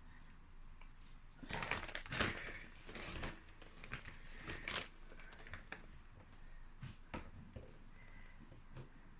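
Potting soil and its packaging being handled while sowing lettuce seeds: irregular crinkling and rustling in short bursts, busiest about one and a half to three and a half seconds in.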